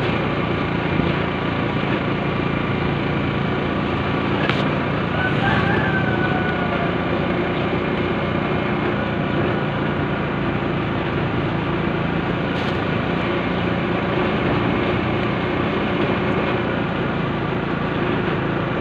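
A small motor vehicle's engine running steadily at an even speed, with road and wind noise, as heard from a moving vehicle. Two brief clicks come through, about four and a half and twelve and a half seconds in.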